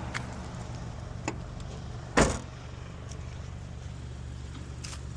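Car engine idling with a steady low hum; a light click about a second in, then a single heavy thud a little after two seconds.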